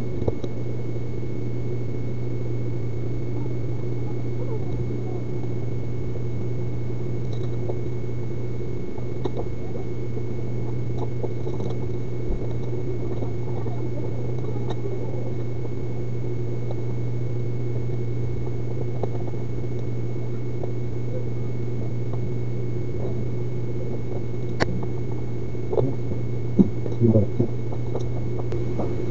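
A steady low hum with thin high whines over it, unchanging throughout. Near the end come a sharp click and a few light knocks as the laptop case is handled.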